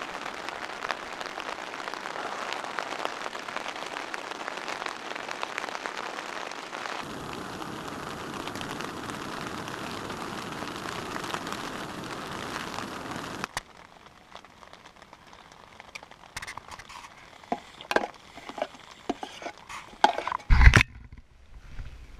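Heavy rain pattering on a nylon tent fly, with a lower rush joining about seven seconds in. About thirteen seconds in it cuts off suddenly to a much quieter stretch of scattered clicks and knocks, with one loud thump near the end.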